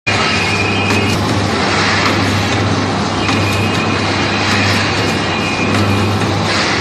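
Vertical pouch packing machine running: a steady motor hum with a high whine that comes and goes, and a few faint clicks.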